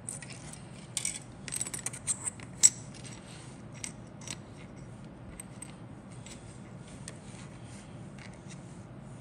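Small plastic model-kit parts clicking and tapping as they are handled and set down on a cutting mat: a quick cluster of clicks in the first three seconds, the loudest about two and a half seconds in, then scattered light ticks.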